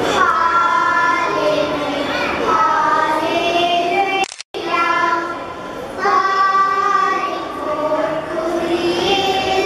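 A group of young children singing a song together, holding long notes; the sound cuts out completely for an instant a little under halfway through.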